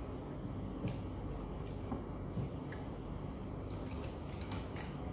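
Eating sounds: wet, squishy chewing and a few short, sharp clicks as baked scallops are picked from their half shells, more clicks close together near the end, over a steady low hum.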